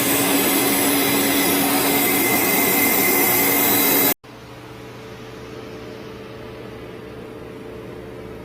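A loud, steady rushing machine noise with a faint steady whine, cutting off abruptly about four seconds in. A much quieter steady mechanical hum follows.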